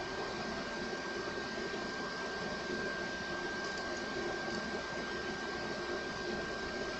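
Hot air rework station blowing steadily while desoldering a laptop's USB-C charging port, a constant rush of air with a thin steady whine.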